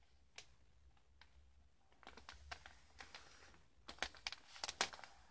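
Wrapping paper rustling and crinkling faintly as it is folded over and pressed flat by hand, with a cluster of sharper crinkles about four seconds in.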